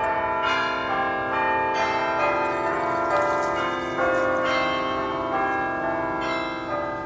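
Bell-like music: ringing chime notes over held tones, with new notes struck about every couple of seconds.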